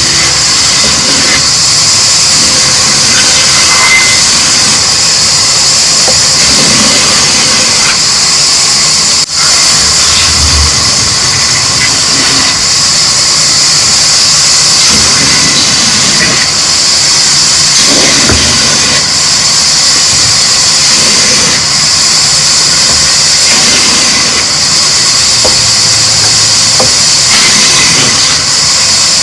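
A machine running steadily and loudly, with a strong constant high hiss.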